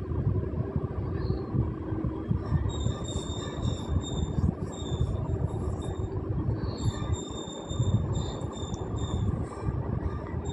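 Thick semolina kesari bubbling and sizzling with melting ghee in a pan over a gas flame, a steady low bubbling noise. A faint high whine comes and goes in the middle and again near the end.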